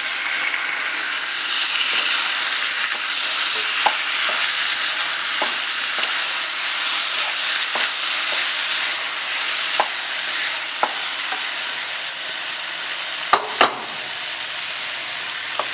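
Sliced onions, ginger, garlic and green chillies sizzling in a pan as they are stirred, with the spoon clicking against the pan every second or two. Two louder knocks come close together near the end.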